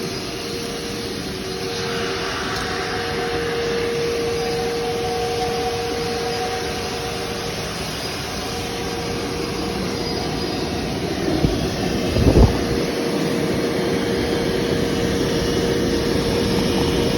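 Shop vac running on its blowing side, a steady motor whine with rushing air, pushing air into a vehicle's exhaust pipe to pressurize it and reveal leaks. Two sharp knocks about eleven and twelve seconds in, the second the louder.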